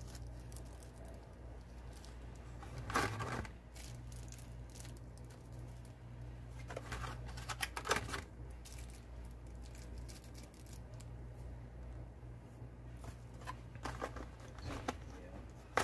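Headset box packaging being handled: short spells of cardboard and plastic rustling and clicking about three seconds in, around eight seconds, and again near the end, over a steady low hum.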